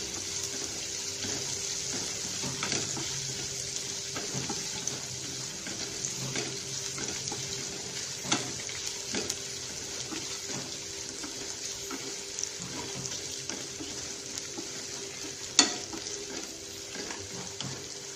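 Sliced onions sizzling in hot oil in a non-stick pan, being sautéed towards brown, while a wooden spatula stirs them with frequent light scrapes and taps on the pan. A sharper knock of the spatula stands out near the end.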